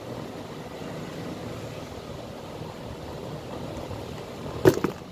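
Steady low background rumble. Near the end, a sharp knock is followed closely by a smaller one as the leather safety shoe is handled over the worktable.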